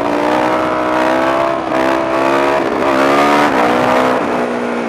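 Suzuki DR-Z400SM supermoto's single-cylinder four-stroke engine pulling under throttle through a wheelie. The pitch holds, dips about two seconds in, rises again and drops near the end, with wind rushing over the helmet microphone.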